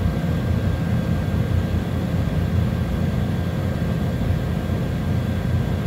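Steady low rumble of background machinery, unchanging throughout, with no distinct clicks or events.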